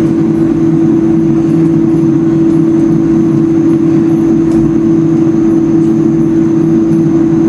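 Small electric kitchen appliance motor running loud and steady at one even pitch, mixing the sauce ingredients.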